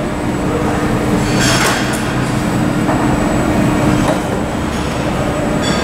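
Jet airliner's engines running during pushback: a loud steady rumble with a held hum and a high whine that swells about a second and a half in and again near the end.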